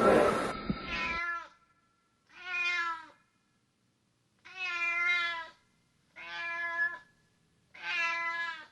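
Domestic cat meowing five times, each meow lasting about a second with short silent gaps between them. The tail of a louder noisy sound cuts off abruptly about a second in.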